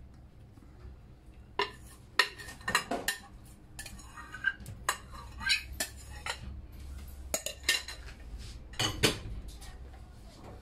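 A spoon knocking and scraping against a mixing bowl in irregular clinks, emptying the last of the egg mixture into a frying pan. The loudest knock comes about nine seconds in.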